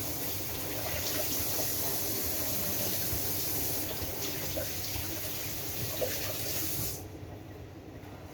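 AEG washing machine filling with water during its Drum Clean cycle: a steady rush of water that stops abruptly about seven seconds in, leaving a low hum from the machine.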